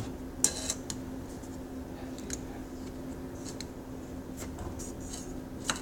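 Marshmallows being handled and dropped into a bowl: scattered light clicks, taps and rustles, a few a second at most, over a steady low hum.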